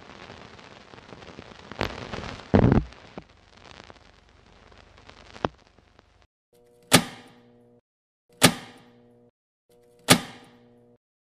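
Produced intro sound effects: a hissing rush with a few thuds, the loudest about two and a half seconds in, then three sharp hits about a second and a half apart, each ringing out over a low steady tone.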